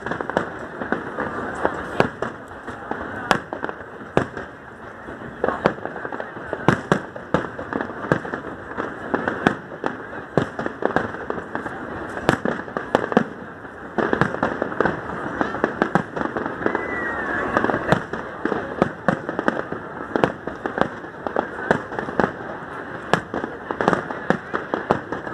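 Fireworks display: a continuous, irregular series of sharp bangs and pops, several a second, over a steady background rumble.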